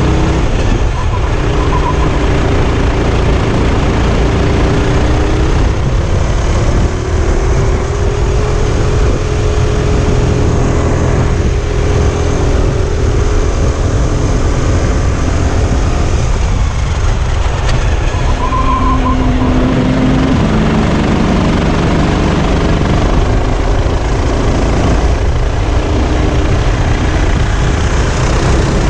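Sodi RT8 rental kart's engine running at racing speed on track, its pitch slowly rising and falling with the throttle, under a steady rush of wind on the onboard microphone.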